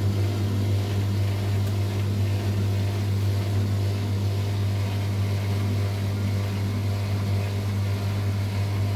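LUX front-loading washing machine running with its back panel off: the motor hums steadily as it turns the drum through the belt and large drum pulley.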